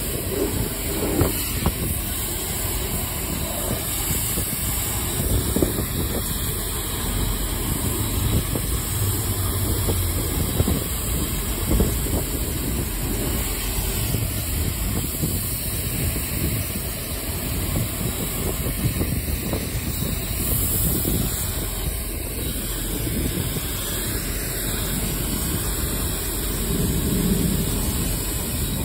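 High-pressure water spray from a car wash wand hitting a car's doors, window and wheel: a steady hiss and spatter with no let-up.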